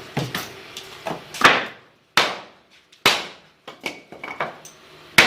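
Hammer blows on wood, sharp separate knocks coming irregularly about once a second, each dying away quickly, as a wooden door frame is being fitted.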